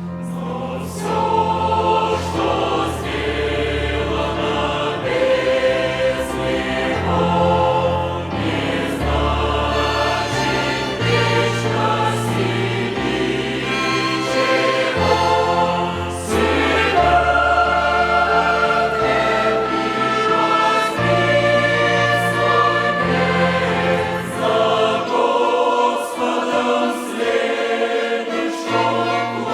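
Mixed church choir singing a joyful hymn in parts, accompanied by a string orchestra with a bowed bass line underneath.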